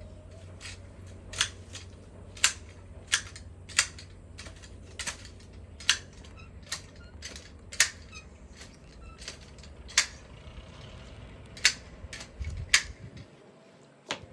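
Hand garden shears clipping ornamental shrubs: sharp snips at an irregular pace, roughly one a second. Underneath is a steady low rumble that stops near the end.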